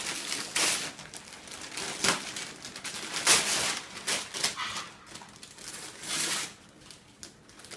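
Gift wrapping paper being crinkled and torn open in irregular rustling bursts, the loudest about three seconds in.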